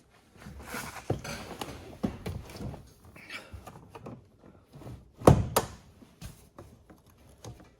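Someone climbing into a Jeep Cherokee XJ's driver's seat: rustling and shifting, a few small clicks and knocks, then two sharp thunks close together a little past the middle.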